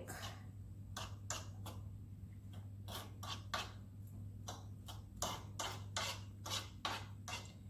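A run of short, irregular taps and clicks, about two or three a second, from kitchen utensils as chopped garlic is added to a bowl of seasoned beef strips. A steady low hum runs underneath.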